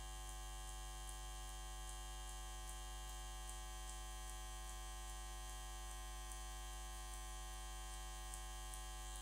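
Faint steady electrical mains hum: a low drone with a stack of fainter, higher steady tones above it.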